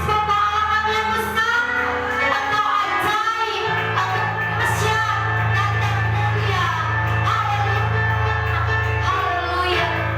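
Live worship music: a band with sustained bass and a voice singing a melody, in a large room.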